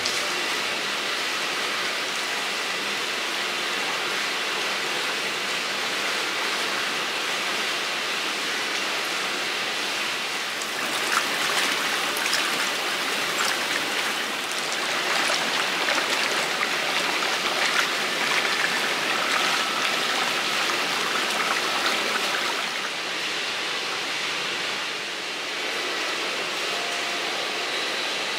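Water running steadily in a tiled bathhouse, with louder bursts of splashing and trickling from about 11 to 22 seconds in.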